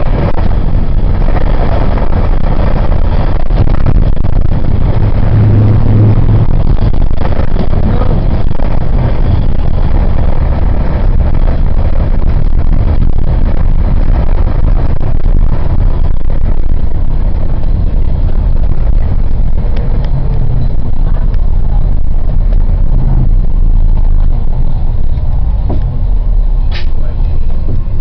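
Loud, steady low rumble of a vehicle on the move, engine and tyre noise together. It turns quieter about halfway through as the vehicle slows, and a brief high squeak comes near the end.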